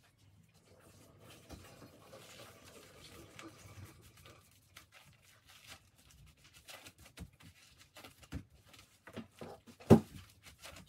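Faint rustling and light knocks of gloved hands rolling and pressing a sushi roll in a rolling mat on a cutting board, with one sharper knock near the end.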